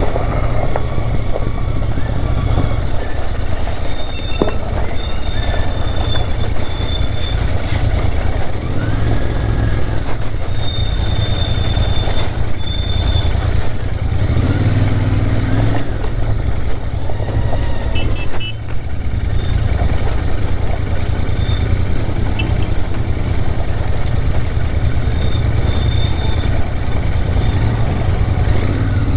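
Royal Enfield Interceptor 650's 648 cc parallel-twin engine running as the motorcycle rides along a rough off-road track, over a steady, heavy low rumble. The sound dips briefly about two-thirds of the way in.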